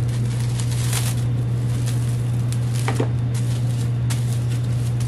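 Cling film crinkling in a few short crackles as a wrapped ball of dough is handled, over a steady low hum.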